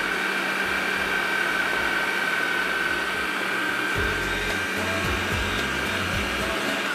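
Electric food processor motor running steadily with a constant whine as its blade mashes shrimp into a paste, stopping right at the end.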